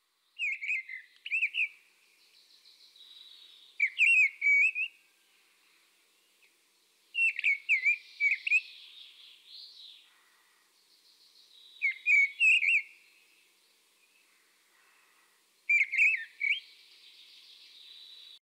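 A bird calling in short bursts of quick, curving whistled notes, repeated about every four seconds, five times, with fainter high bird sounds between them.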